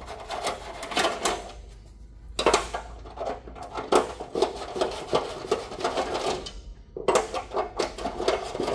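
Metal clicking and rattling of a hex driver bit being turned by hand, backing out the screws of a plastic infant-warmer bed panel. It comes in short runs with two brief pauses.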